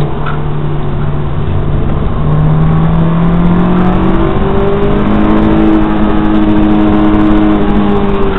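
Honda S2000's 2.0-litre four-cylinder engine heard from inside the cabin while driving, its note climbing steadily under acceleration over the first few seconds and then holding at a steady pitch.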